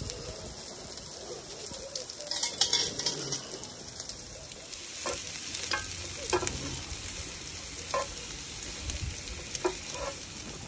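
Sliced onions frying in a pan on a barbecue, with a steady sizzle, turned with metal tongs that click and scrape against the pan several times in the second half.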